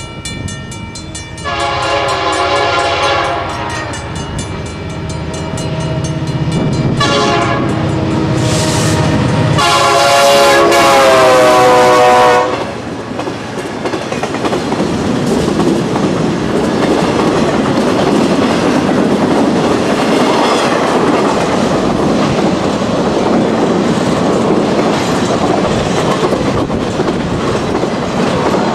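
Diesel freight locomotive's air horn sounding several long blasts as the train approaches, the last and loudest cutting off about halfway through. Then the freight cars roll past with a steady rumble and clatter of wheels on rail.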